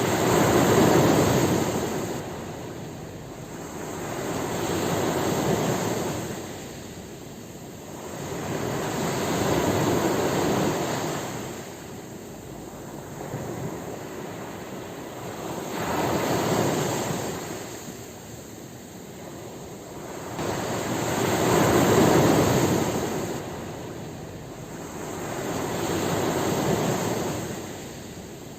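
Ocean waves washing onto a shore, the surf swelling and fading about every five seconds, six times.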